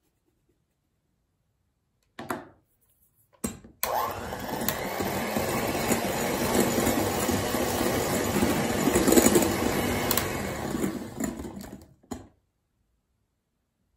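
Electric hand mixer with twin wire beaters whipping egg whites and sugar into meringue in a glass bowl, running steadily for about eight seconds and then switching off. A brief noise about two seconds in and a click just before the motor starts.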